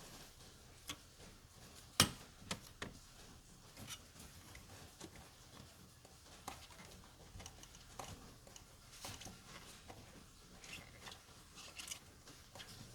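Light, irregular clicks and knocks of hand tools and parts being handled, with one sharper knock about two seconds in.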